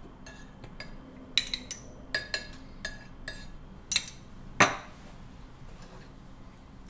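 Small metal spoon clinking against a small porcelain cup and plate: about ten light, sharp clinks with a short ring, the loudest about four and a half seconds in, then quiet.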